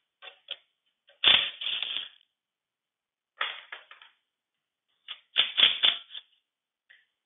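Cordless impact wrench hammering loose the pan bolts on a 1953 Allis-Chalmers B tractor's final drive housing. It goes in short rattling runs: a couple of brief blips, then three longer runs of about a second each, with pauses while the wrench is moved to the next bolt.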